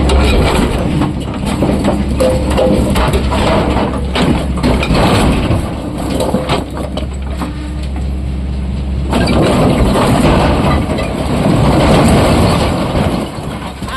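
Heavy diesel machinery running under a dense clatter of knocks and crunching, like rock being dug and dumped by an excavator loading a tipper truck. The sound changes abruptly about nine seconds in.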